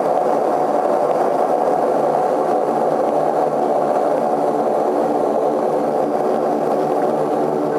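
An Antonov An-24's twin Ivchenko AI-24 turboprop engines and propellers running, heard from inside the passenger cabin, as the airliner rolls along the runway after landing. A loud, steady drone with several held tones.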